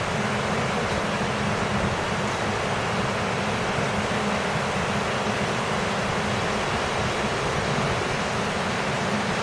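Fast-flowing floodwater rushing, a steady, unbroken rushing noise.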